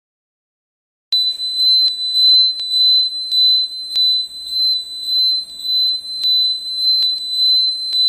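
Piezo buzzer of a power-failure alarm circuit sounding a steady, high-pitched tone that starts about a second in and pulses slightly about every three-quarters of a second: the alarm triggered by a loss of mains power.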